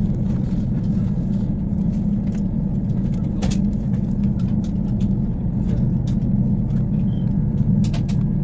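Steady low rumble of an airliner's cabin, its jet engines and airframe running before the plane is airborne, with a few faint clicks.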